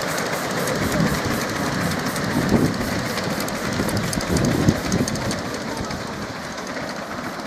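A miniature railway passenger train rolling past on its track, its wheels clicking quickly and steadily over the rail joints with a few low thumps. It fades as the train moves away.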